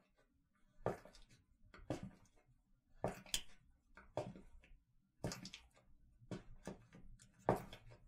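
Footsteps of a person walking at an unhurried pace, about one step a second and unevenly spaced, each a short sharp footfall.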